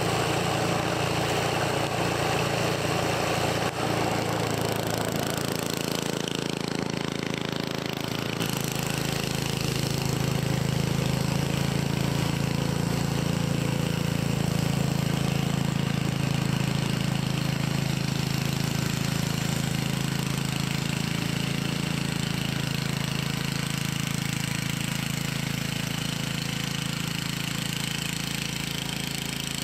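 Snowblower's small gasoline engine running steadily while the auger churns through deep snow and throws it out the chute. The engine's hum holds at a constant pitch throughout, with a rougher churning layer in the first few seconds.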